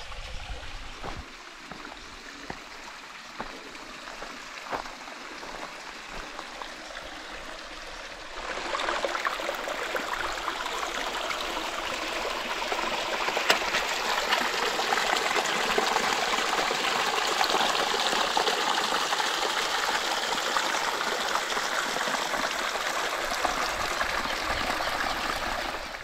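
Water of a small waterfall running over rock as a steady rush. It grows much louder and nearer about eight seconds in.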